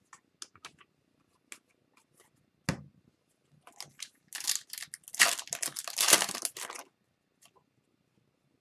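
Foil wrapper of a 2021-22 Upper Deck Series 2 hockey card retail pack being torn open and crinkled by hand, dense for about two and a half seconds in the second half. Before it come light clicks of cards being handled and one knock about a third of the way in.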